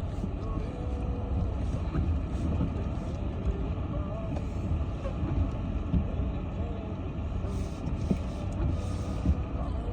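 Steady low rumble of a vehicle driving on a snowy road, heard from inside the cabin: engine and tyre noise, with no sudden changes.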